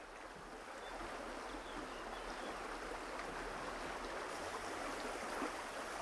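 Shallow river current flowing and babbling steadily, coming up a little over the first second.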